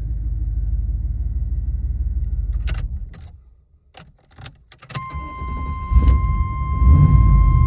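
Truck engine running, then shut off about three seconds in, followed by several key clicks in the ignition. A steady warning tone comes on with the key about five seconds in, and the engine is cranked and runs again near the end, on a truck that has trouble restarting once warm.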